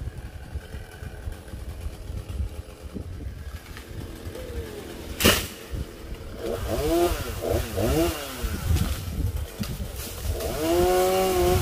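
Two-stroke chainsaw engine revved in short throttle blips, its pitch rising and falling, then held steadier at a higher pitch near the end. A single sharp knock comes about five seconds in.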